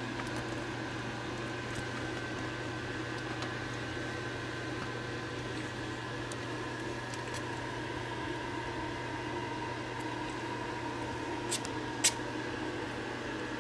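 Steady low room hum with a few faint ticks, broken by two sharp clicks close together near the end, the second louder.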